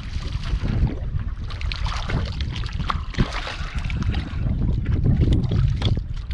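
Wind buffeting the microphone with a steady low rumble, over which a small speckled trout splashes and thrashes at the water's surface beside the boat as it is brought in.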